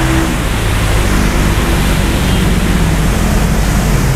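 Heavy rain falling steadily, a loud even hiss.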